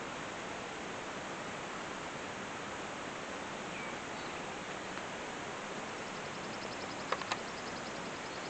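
Steady outdoor hiss with a few faint bird chirps; near the end a fast high trill, with two or three sharp clicks in the middle of it.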